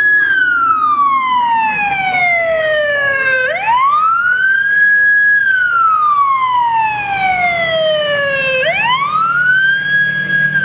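Fire brush truck's siren sounding a slow wail: each cycle rises quickly to a high pitch, holds briefly, then falls slowly, repeating about every five seconds. A low engine note comes up near the end as the truck passes close.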